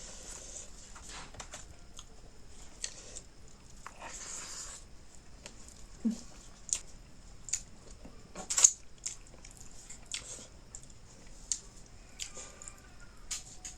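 A person eating close to the microphone: chewing and biting, with short sharp mouth clicks about once a second, the loudest a little before nine seconds in.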